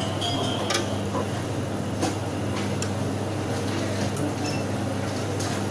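Steady low hum, with a few light clicks as the glass draft-shield door of the karat analyzer's balance is slid shut, one near the start and others spread through.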